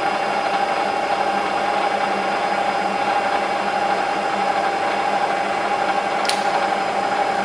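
Bridgeport vertical milling machine's 2 HP head running steadily with the quill power feed engaged, with a constant whine and hum. A single sharp click about six seconds in as the quill feed trips off at its stop.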